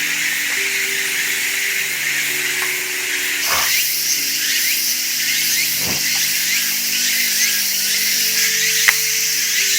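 Dense late-summer insect chorus: a steady high-pitched buzzing with many short chirps repeating over it.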